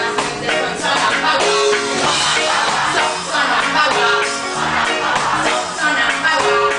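Live reggae band playing a song with a steady beat, with singing over it.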